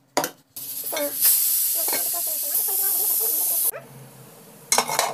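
Steam hissing steadily from an idli steamer for about three seconds, then cutting off suddenly. Short clicks come near the start and near the end.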